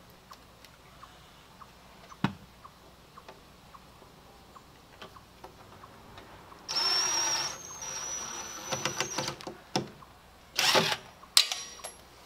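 Cordless drill driving 3-inch screws at an angle into a 2x4 roof truss. After a few faint clicks and a sharp knock about two seconds in, the motor runs with a high whine for about a second past the middle. Shorter spurts and clicks follow, then another short run near the end.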